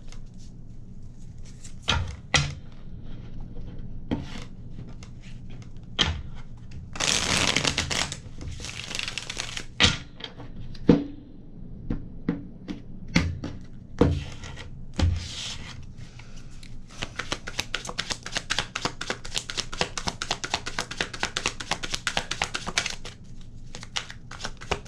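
Tarot cards being shuffled and handled: scattered taps and flicks, a brief rustle about seven seconds in, then a long run of rapid card flicking through most of the second half.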